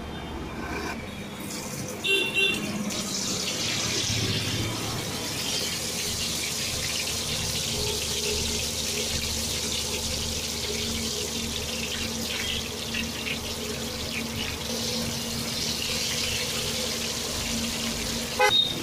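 Hot oil sizzling steadily in a large deep-frying wok as potato slices are cut into it, over a low steady hum. A short high-pitched beeping tone sounds about two seconds in, and there is a sharp click near the end.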